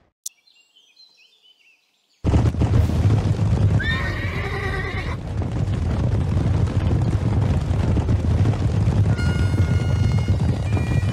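Faint bird chirps for about two seconds, then a cavalry sound effect cuts in suddenly: a dense rumble of galloping horses' hooves, with one long horse whinny about four seconds in. Near the end, bagpipes begin playing over the hooves.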